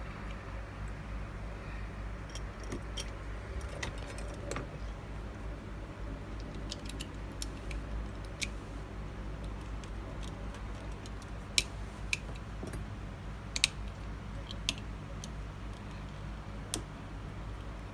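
Sharp, scattered metallic clicks and taps of tweezers and small metal parts against an iPhone 7 Plus housing during reassembly, more frequent in the second half, over a steady low hum.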